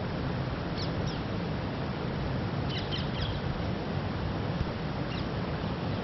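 Egyptian goslings giving short, high, downward-sliding peeps: a couple about a second in, a quick cluster around three seconds in, and one more near the end, over a steady rushing background noise.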